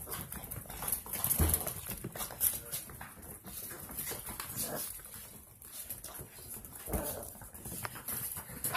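Six-week-old Rottweiler puppies scrambling across a hard tile floor, many small claw clicks and paw taps, with a faint whimper now and then.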